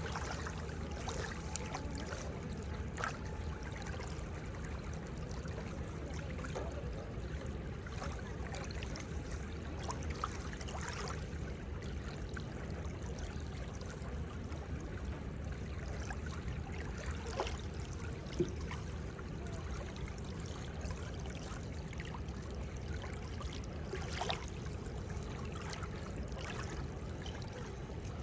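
Seawater at the shore: a steady wash of moving water, with short sharp ticks scattered through.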